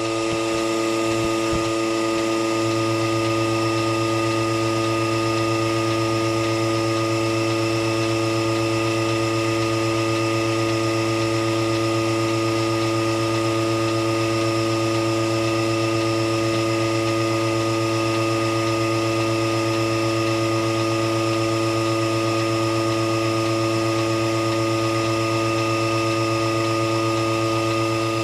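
Melasty electric milking machine's vacuum pump running with a steady hum while it draws milk from the cow through the teat cups and tubes into its stainless steel bucket.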